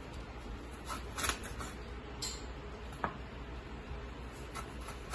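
Chef's knife slicing green chili peppers lengthwise on a wooden cutting board: a few scattered soft knocks and clicks as the blade cuts through and meets the board.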